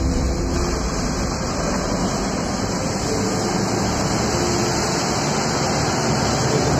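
Steady engine and road noise from inside a moving small passenger vehicle, a continuous rumble with tyre and wind hiss.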